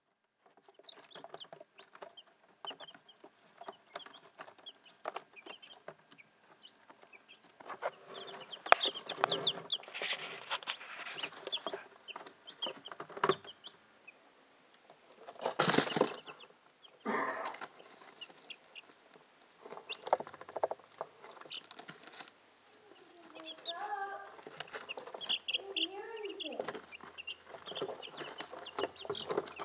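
A brood of young chicks peeping and chirping, many short high calls overlapping, with scattered light clicks. About halfway through there is a brief louder burst of noise.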